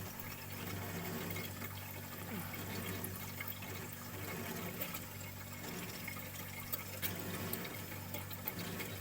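Sharp single-door refrigerator running after a refrigerant recharge: a steady compressor hum with the sound of liquid flowing through the cooling lines. The technician takes this sound as a sign that a lot of compressor oil is still inside the system.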